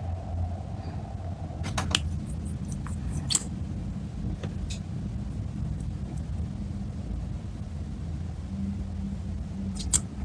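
A steady low rumble, with a few light plastic clicks and taps from handling a liquid concealer tube and its applicator wand.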